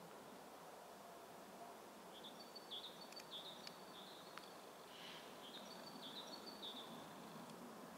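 Near-silent outdoor ambience with a faint low hum. From about two seconds in until near the end, a small bird calls in a run of short, high chirps, with a few faint clicks among them.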